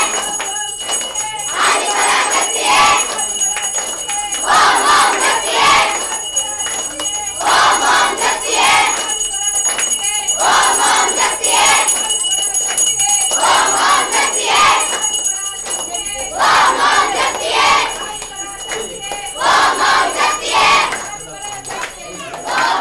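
A crowd of devotees chanting together in loud bursts about every three seconds, with bells jingling steadily throughout.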